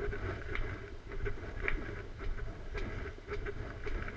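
Footsteps climbing concrete stairs, a faint step about every half second, over a steady low rumble on the microphone of a body-worn camera.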